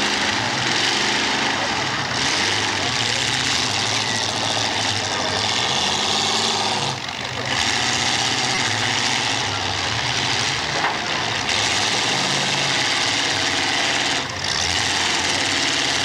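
Engines of several race cars running together in a steady, loud din that dips briefly twice.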